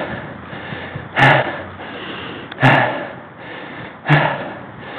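A man breathing hard, out of breath, close to the microphone: a loud, rough breath about every second and a half, three in all.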